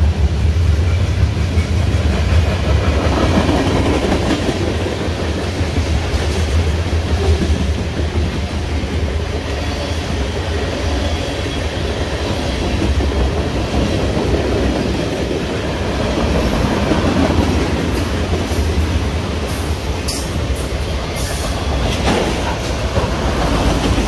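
Heavy CN freight train rolling past, a steady low rumble of wheels on rail, with a few sharp clicks near the end.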